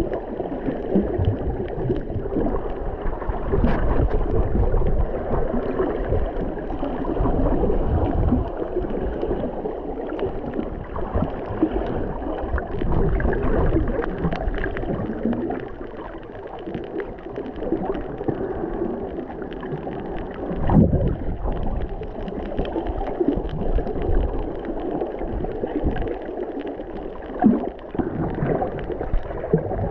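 Muffled underwater wash of moving water, gurgling and rumbling, swelling and fading, with faint scattered clicks.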